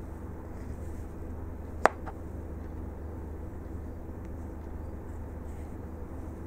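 Steady low hum of background noise, with one sharp click about two seconds in.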